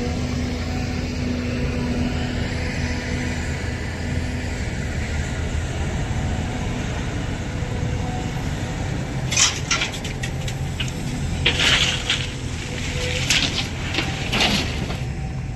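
Heavy diesel machinery, an excavator at work, running steadily with a low drone. About nine seconds in come several bursts of clattering, crunching hits over some five seconds, as rock is dropped into a truck bed.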